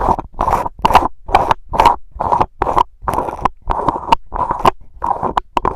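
Handling noise from unscrewing the IK iRig Mic HD's metal mesh grille head by hand, picked up by the microphone's own capsule: a run of loud scraping rubs, about two a second.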